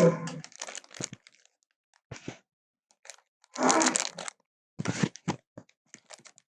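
Triceratops sound effect: harsh crunching, crackling bursts, three louder ones with scattered clicks between them.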